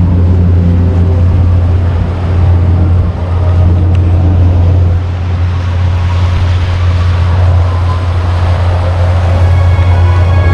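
Boat motor running steadily with a low hum, under a rushing noise of water and wind.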